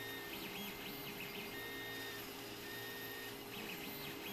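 Gmax 1.5XT+ dual-extruder 3D printer printing: its stepper motors whine in shifting tones that start and stop with each move of the print head, over a steady hum.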